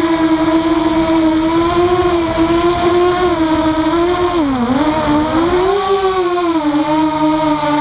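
Walkera F210 racing quadcopter's brushless motors whining in flight, a steady pitch that dips sharply about four and a half seconds in and climbs back as the motors slow and speed up again.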